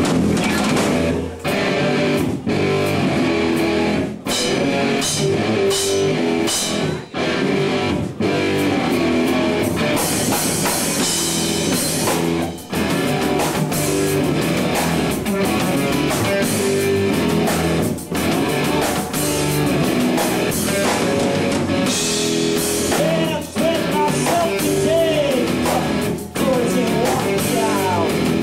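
Rock song playing loudly, with electric guitar and a drum kit.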